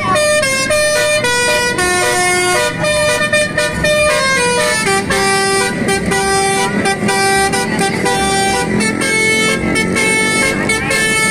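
Basuri musical air horn playing a tune: a run of held horn notes that step up and down every fraction of a second, often several sounding together, over a steady low hum.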